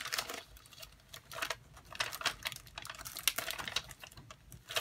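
Light, irregular clicks and rustles of plastic embellishment packets and the pockets of a plastic folder being handled and thumbed through.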